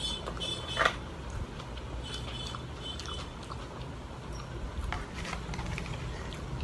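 Mouth eating sounds: chewing with small wet clicks and smacks, over a steady low traffic-like rumble. A short sharp squeak-like sound comes under a second in, and a pulsed high beeping sounds briefly about two seconds in.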